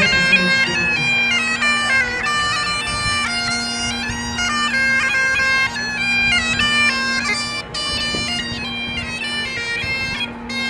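Bagpipes playing a tune, the melody stepping up and down over a steady drone.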